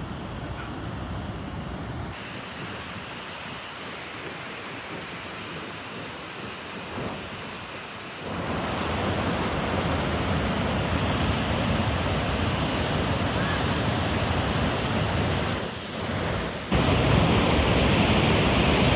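Steady rushing roar of a waterfall, a full even noise that jumps abruptly louder about eight seconds in and again near seventeen seconds.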